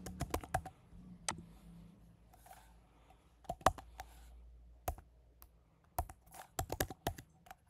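Typing on a computer keyboard: irregular key clicks, a quick run at the start, a few single keystrokes in the middle, and another run near the end.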